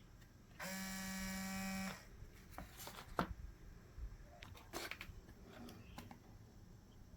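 An electric buzz that switches on and off abruptly and lasts a little over a second, followed by a sharp click and scattered light clicks and knocks.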